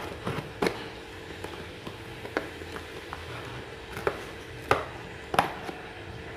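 Scissors cutting through packing tape on a cardboard box: a handful of sharp snips and tape crackles, spaced unevenly, over a faint steady hum.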